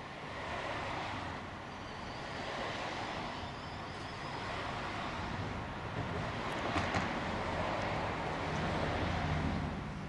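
Passing road traffic: the noise of a car's tyres and engine swells and fades, loudest in the last few seconds before it drops away.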